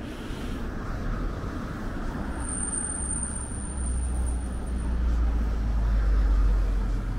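Street traffic passing, with a heavy vehicle's low engine rumble building up and peaking about six seconds in. A high, thin whine sounds for a couple of seconds in the middle.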